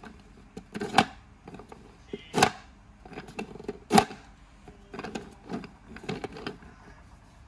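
Plywood top of a homemade wooden sliding table pushed back and forth by hand: wood sliding on wood, with three sharp wooden knocks about a second and a half apart, then several lighter knocks and rubs later on.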